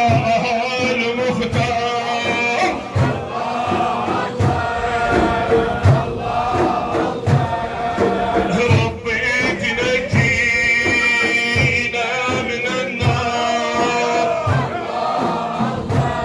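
Sufi dhikr chanting: a male lead voice sings long held lines with a group of men chanting along, over a low beat that falls about every second and a half.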